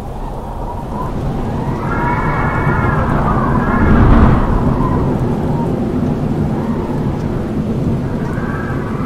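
Howling wind: a deep rumbling gust that swells to its loudest about four seconds in, with thin whistling tones sliding up and down above the rumble.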